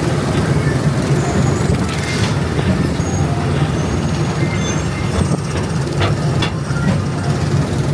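PeopleMover ride train rolling along its elevated track: a steady low rumble, with a few faint clicks about two, five and six seconds in.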